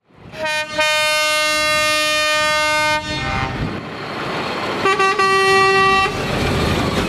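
Truck air horns sounding as heavy tractor units pull out: a short toot, then a blast of about two seconds. After a gap filled with diesel engine and tyre noise, a second horn at a higher pitch gives two quick toots and a blast of about a second.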